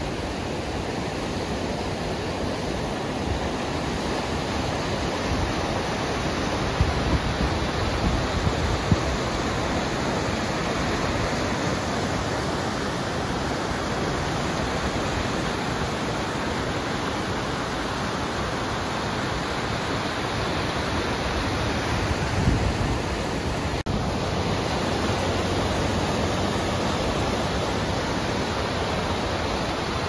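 Steady rush of a fast mountain stream tumbling over rocks. A few brief low thumps come about seven to nine seconds in and again around twenty-two seconds.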